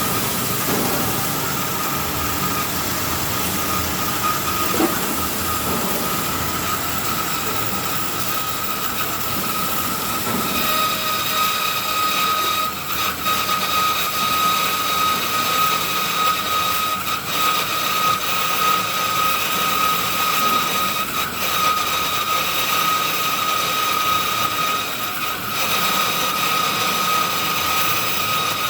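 Hydraulic pipe cutting machine running: a steady high whine over a loud noisy hiss, with further higher whining tones joining about ten seconds in.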